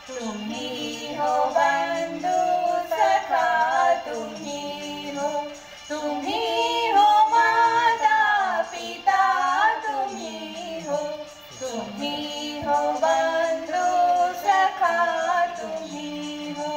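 A woman singing a prayer song.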